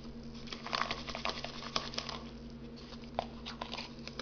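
Fingers stirring dry, paint-coloured cardboard crumbs in a plastic cup: an irregular rustling patter of small crackles and clicks.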